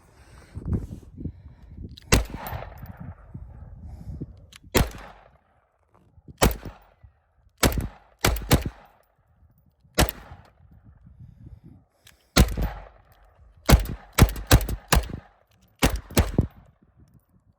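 Taurus TX22 Competition semi-automatic .22 LR pistol firing Interceptor rounds: about fifteen sharp cracks at uneven intervals, some in quick doubles and triples, each followed by a brief echo.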